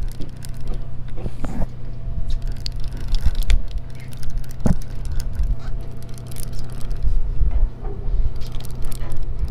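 Steady low hum of a fishing boat's motor, with wind rumbling on the microphone. A few sharp knocks and scrapes come from fishing gear handled against the rail, the loudest about halfway through.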